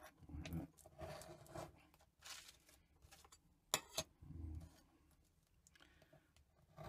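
Quiet handling of a metal hard drive platter and hand tools on a wooden bench: short scrapes and rubs, with two sharp clicks close together a little under four seconds in.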